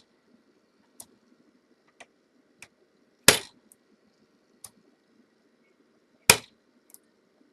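A dimple bump key in a lock cylinder being struck with a bumper to bump the lock: two sharp metallic strikes about three seconds apart, with lighter taps and clicks between them.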